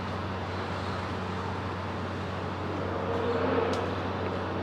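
Steady urban street traffic noise, swelling a little about three seconds in.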